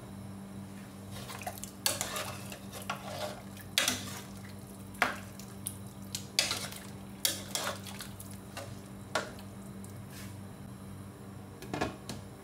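A metal cooking utensil clinking and knocking against a pot of chicken soup as it is stirred, with seasonings just added: about seven sharp, irregular strikes. A steady low hum runs underneath.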